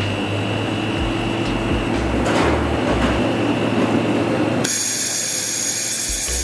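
Platform fiber laser welding machine running a weld in its triangle wobble mode: a steady machine hum with hiss. About four and a half seconds in, the sound switches suddenly to a high-pitched hiss.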